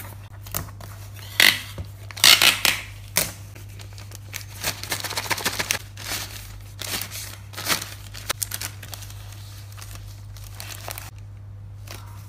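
Hands handling a small cardboard box and a yellow plastic mailer bag: sharp cardboard taps and scrapes as the box flaps are folded shut, then crinkling and rustling as the box is slid into the bag. A steady low hum runs underneath.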